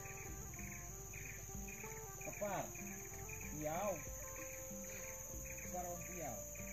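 Insects shrilling steadily at two high pitches, with a pulsing chirp, about three pulses a second, running beneath. Two short calls sweeping up and then down stand out about two and a half and four seconds in, with a fainter one near the end.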